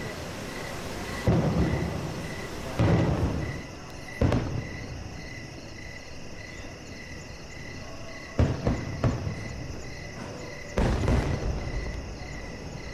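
Distant aerial fireworks bursting: deep booms that rumble on after each burst, three about a second and a half apart, then a quick run of three about eight seconds in and another near the end. A steady high chirping, about three a second, runs underneath.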